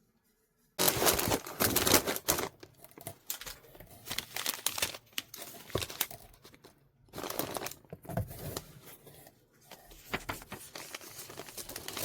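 Crinkly packaging being handled and rustled as an order is packed by hand, in irregular bursts that start abruptly about a second in, with quieter gaps around the middle.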